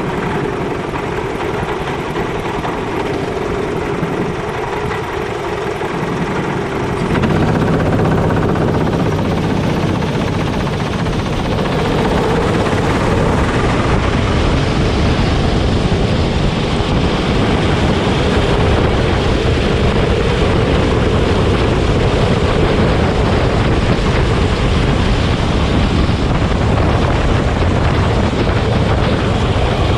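Go-kart engine running on track, growing louder with a heavier low rumble from about seven seconds in.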